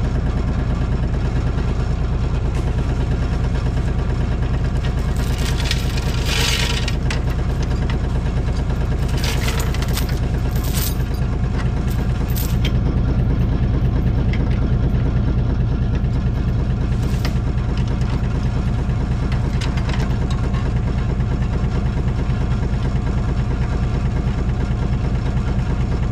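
Excavator engine running steadily at a constant speed, with several short hissing bursts over it.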